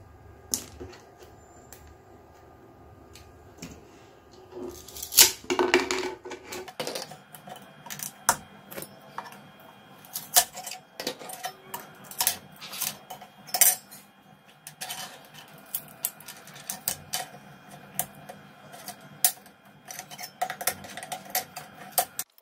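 Freshly 3D-printed plastic parts being pried and snapped off a 3D printer's build plate: a run of sharp clicks, taps and scrapes, busiest about five to seven seconds in.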